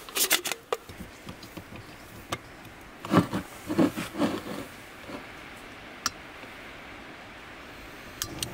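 Small camp stove gear being handled and screwed onto a gas canister: clinks and clicks in the first second, a cluster of knocks about three to four seconds in, and one sharp click a little later.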